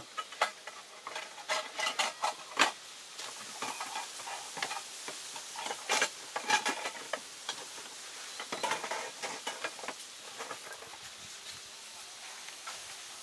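Rustling fabric and gear being stuffed into a backpack, with scattered clicks and light knocks. The sounds come in irregular clusters and are loudest in the first few seconds.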